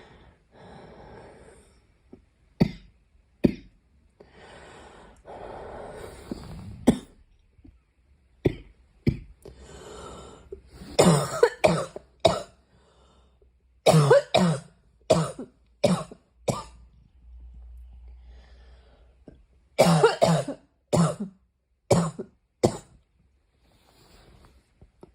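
A girl coughing over and over, in short bursts that come in fits of several coughs at a time, with softer breaths between them. The loudest fits come about halfway through and again later on.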